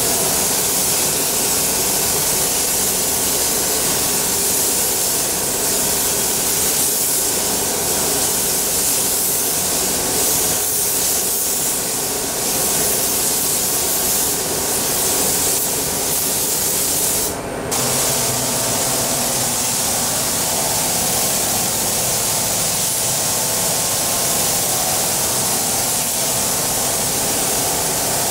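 Compressed-air paint spray gun with a gravity-feed cup hissing steadily as it lays paint on a car body, cutting out briefly about two-thirds of the way through before the spraying resumes.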